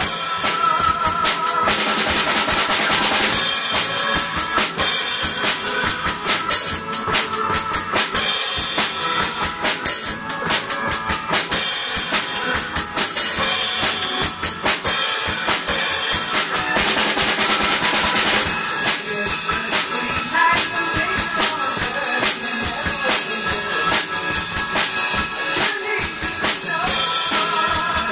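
Drum kit played in a steady, busy rock beat: bass drum, snare and toms under cymbals, with crash cymbal hits. It plays along with a recorded song.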